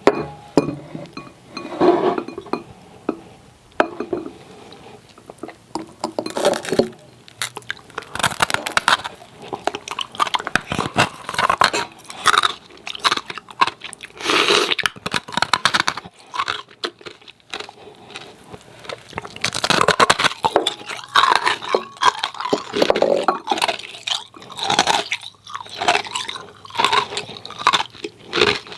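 Hard ice cubes being bitten and chewed close to the microphone: loud, irregular crunching and cracking in repeated bursts, with short pauses between bites.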